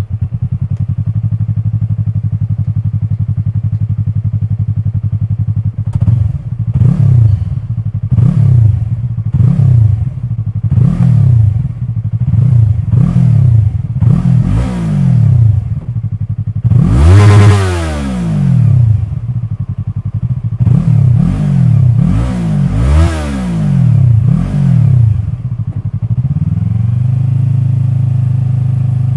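Yamaha YZF-R3's 321 cc parallel-twin engine through an Akrapovič carbon slip-on exhaust, idling steadily and then revved in many short throttle blips while standing still. The longest and highest rev comes about two-thirds of the way through, and the engine settles back to a steady idle near the end.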